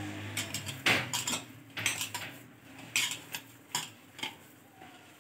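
Hands squeezing and mixing mashed potato filling in a bowl, with about five sharp clinks against the bowl, likely from bangles or rings.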